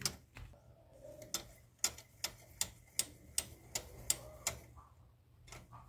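Homemade spark plug wrench made from a metal tube, clicking metal on metal as its bar handle is turned to spin out a loosened spark plug. The clicks come in an even series of about two and a half a second, starting about a second and a half in and stopping about a second before the end.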